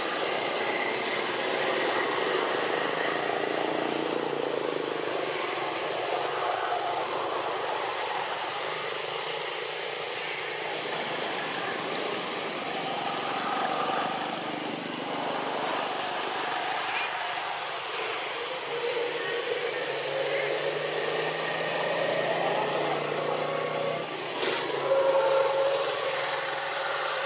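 Steady outdoor background noise, like distant traffic, with faint indistinct voices and a brief louder sound near the end.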